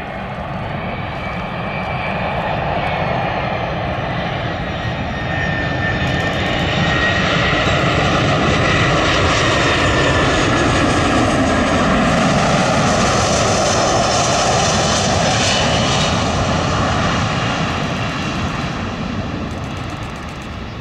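Airbus A340-300's four turbofan engines on final approach, passing close by. The engine noise swells to its loudest around the middle, its whine sliding down in pitch as the airliner goes past, then fades near the end.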